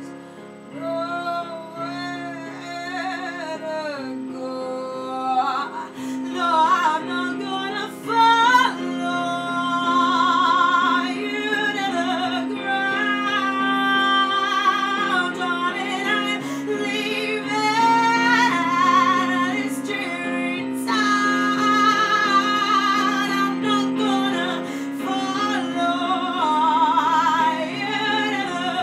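A song: a woman singing long held notes with wide vibrato over a sustained instrumental accompaniment.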